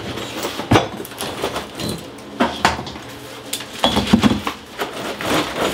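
Broken ceramic tile shards and mortar chunks clinking and clattering irregularly as they are scraped and picked up by hand from a torn-out shower floor.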